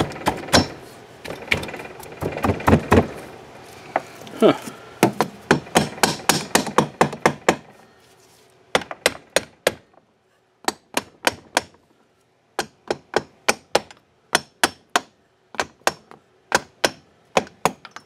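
Rubber mallet tapping the cylinder of a Honda ATC250R two-stroke engine down over the piston onto its base gasket, a tight fit being seated: dozens of sharp knocks, dense and irregular for about eight seconds, then separate taps in short runs, about two or three a second.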